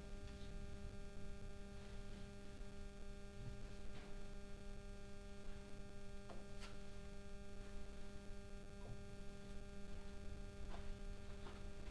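Steady electrical hum with a higher tone above it, and a few faint clicks and taps: one about four seconds in, a pair a little after six seconds, and more near the end.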